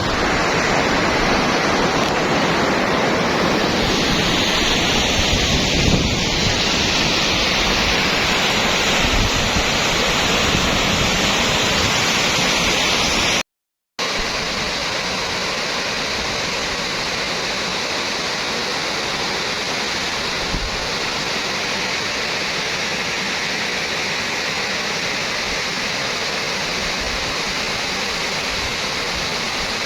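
Floodwater rushing down a seasonal stream bed in spate, a loud, steady roar of fast-moving water. Wind buffets the microphone in the first half, and the sound breaks off for a moment about halfway.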